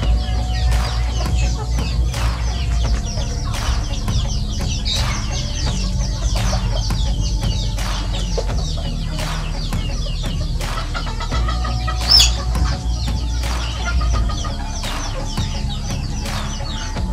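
A flock of young chickens clucking as they peck at feed, with frequent short sharp clicks and one brief high-pitched call about twelve seconds in, over a steady low rumble.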